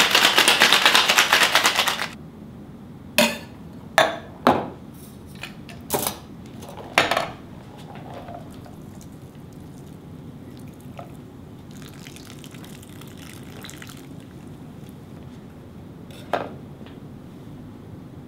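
Ice rattling hard in a stainless steel Boston shaker being shaken for about two seconds. Then several sharp metal knocks and clanks as the shaker tins are tapped apart and set down, followed by a quiet pour through a Hawthorne strainer into an ice-filled glass, and one more knock near the end.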